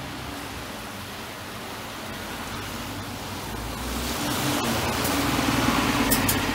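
Hankyu non-step city bus driving past close by: engine hum and tyre hiss on the wet road, swelling over the second half as it passes, with a couple of short high ticks near the end.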